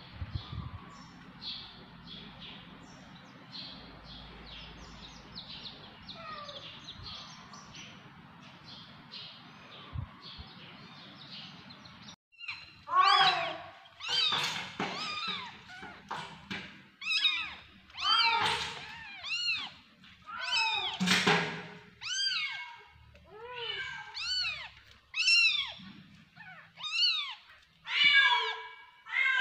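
Baby chicks peeping softly, many short high cheeps in quick succession; about twelve seconds in, newborn kittens take over, mewing loudly and repeatedly, about one cry a second.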